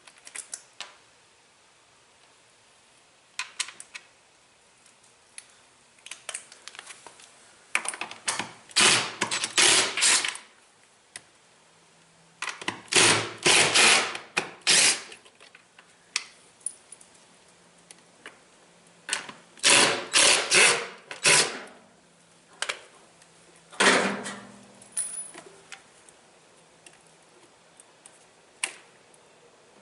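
Hand work on the parts of a Maytag Centennial washer during a teardown: scattered clicks and four spells of rapid scraping and rattling, each lasting one to three seconds.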